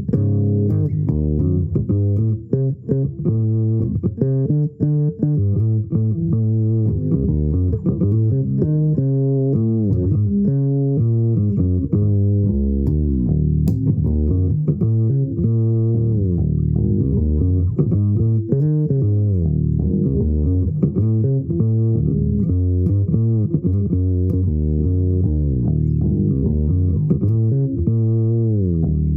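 Solo bass guitar improvising, a continuous run of plucked low notes with slides between some of them.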